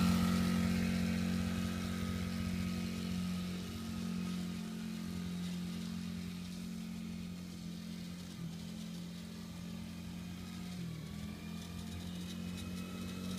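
Polaris Outlaw 50 youth ATV's small engine running at a steady pitch, growing fainter as the quad moves away and louder again near the end, with a brief dip in pitch about eleven seconds in.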